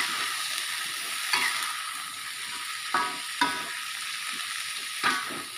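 Long beans and green beans sizzling in oil in a wok as they are stir-fried, with a spatula scraping across the pan four times.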